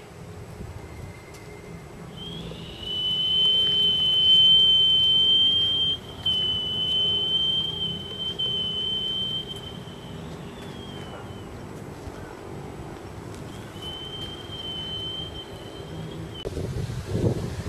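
Iwabue (Japanese stone flute) blown in one long, high, piercing whistle that slides up into a steady note about two seconds in and holds until about ten seconds, with a brief break near six seconds. It sounds again briefly for about two seconds near the end, over a low background rumble.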